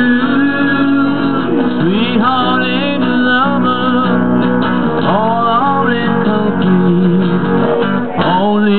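Instrumental break of a live guitar duo: an electric guitar plays a lead line with notes bent up in pitch, over a strummed acoustic guitar.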